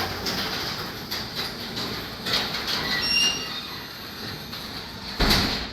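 Automatic chain-drive garage door opener moving the door, with the panels and rollers rattling along the tracks and a few short squeaks about three seconds in. About five seconds in, a heavy thud as the door closes against the floor, and the sound then dies away.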